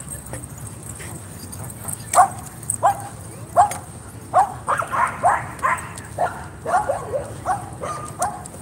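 A dog barking repeatedly, short barks starting about two seconds in and coming quicker toward the middle.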